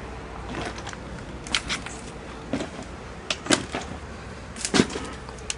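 Footsteps knocking and crunching on debris, about one step a second, in a tornado-damaged house.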